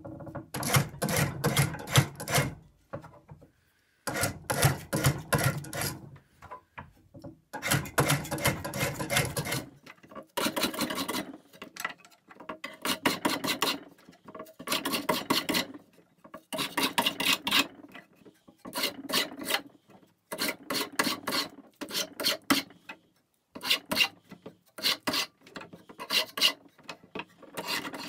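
Flat spokeshave cutting a wooden chair spindle clamped in a shave horse: bouts of quick, short shaving strokes, each bout lasting about two seconds, with brief pauses between, as the spindle is rounded down toward its final size.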